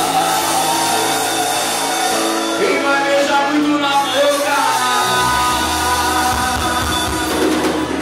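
Live band playing loud amplified music, with a lead singer over guitar; a deep bass part comes in about five seconds in.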